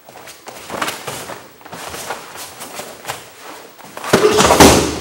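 Barefoot martial artists working a self-defence technique on floor mats: scuffs of feet, rustling uniforms and light contacts, then a loud, heavy thud and scuffle about four seconds in as the attacker is thrown down onto the mat.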